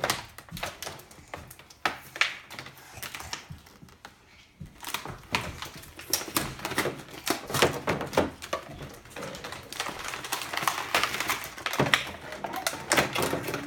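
Toy packaging being handled and torn open: an irregular run of sharp crinkles, crackles and clicks, busier in the second half.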